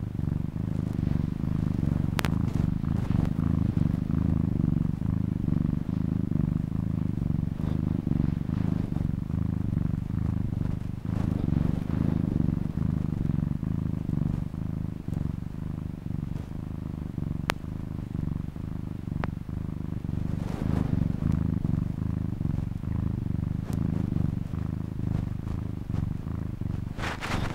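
Domestic cat purring steadily, a continuous low rumble, with a couple of brief clicks.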